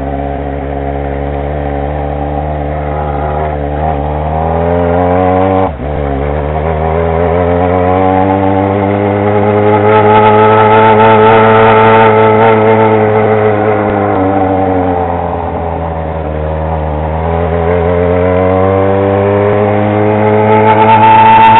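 Yamaha XJ6's inline-four engine running loud through an exhaust with the baffle removed. The engine note climbs, drops suddenly about six seconds in, rises again and holds, sags, then climbs once more near the end.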